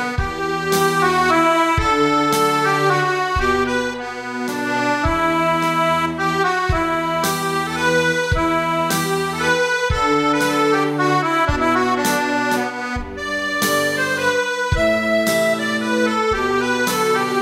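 Roland digital accordion playing a Celtic tune: a right-hand melody in chords over bass notes that enter about every one and a half seconds.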